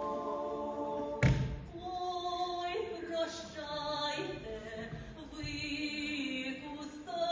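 Folk choir singing an old Ukrainian kant, several voices holding notes together in harmony. A single sharp thump cuts in about a second in.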